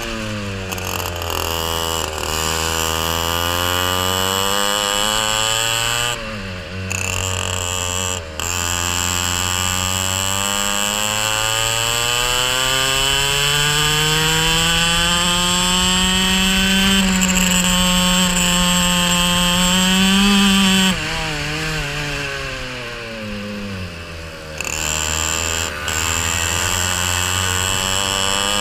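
Racing kart engine heard from onboard: the revs fall into a corner at the start, climb steadily along a long straight to a peak about twenty seconds in, drop sharply off the throttle, then climb again near the end. A steady high whine runs over the engine note.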